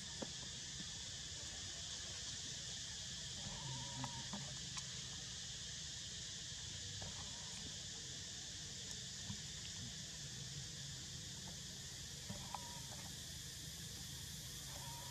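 A steady, high insect chorus drones throughout. A few brief calls come over it about four seconds in and again near the end.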